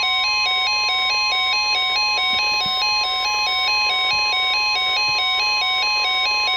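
Weather radio alert tones: a steady NOAA Weather Radio warning alarm tone (1050 Hz) sounding together with a beeping tone that steps back and forth between two pitches a few times a second. The tones are the alarm that announces a severe thunderstorm warning.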